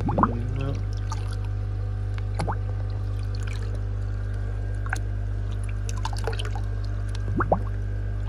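Water splashing and gurgling as a clay pleco cave is tipped and shaken over a glass dish of water, with short rising gurgles just after the start, about two and a half seconds in and about seven seconds in. A steady low equipment hum runs underneath.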